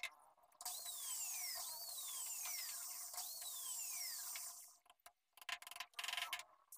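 A high steady hiss with three falling whistles about a second apart, then a few sharp taps of a hammer on the wooden cabinet-door frame near the end.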